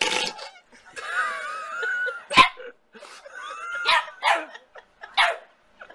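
A dog vocalizing: a wavering, sliding whine about a second in, broken by several short sharp barks and yips, the loudest about two and a half seconds in.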